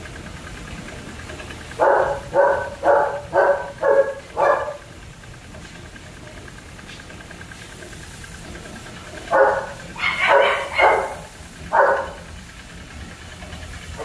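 A dog barking: a quick run of six barks about two seconds in, then after a pause five more.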